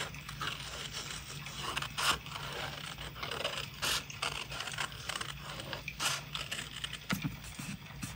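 Scissors cutting through a sheet of thin paper: a few crisp snips about two seconds apart, with the paper rustling between them. Near the end, hands press and rub the cut paper down onto a journal page.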